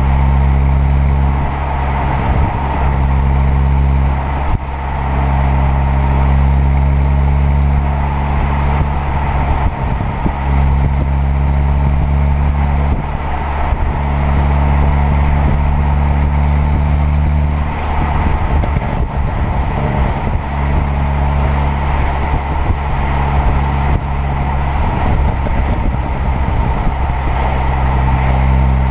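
Turbocharged 2.0 TFSI four-cylinder car engine and exhaust under way, holding a steady engine speed for long stretches, with several short bursts of crackling from the exhaust, the longest a little past the middle.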